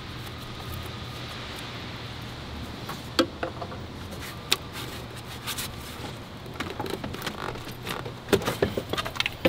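Scattered clicks and knocks of hands working a rubber engine intake boot loose on a 2008 BMW 328i, few at first and more frequent in the last few seconds, over a steady low hum.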